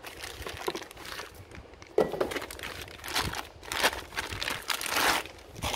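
Packaging of a new wheel hub bearing being opened by hand: wrapping crinkling and rustling in irregular bursts, with a sharper crackle about two seconds in.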